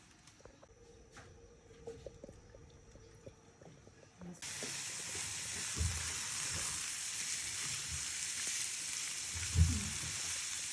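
Food going into hot oil in a pan about four seconds in, starting a steady frying sizzle, with a couple of dull knocks of a utensil against the pan, the second one loud near the end.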